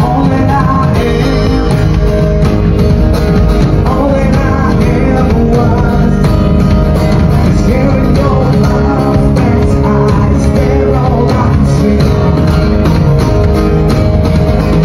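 Live rock band playing a song: a man singing over an acoustic guitar, electric bass and drum kit, loud and steady.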